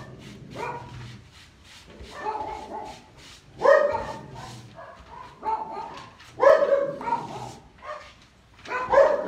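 Several domestic dogs barking in irregular bursts, the loudest barks about a third of the way in, two-thirds of the way in and near the end: alert barking at people who have arrived in the street.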